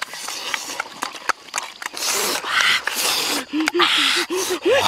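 Close-up eating of roast goose: wet smacking and chewing clicks, with loud hissing slurps. Past the middle comes a quick run of short hummed 'mm' sounds that rises in pitch near the end.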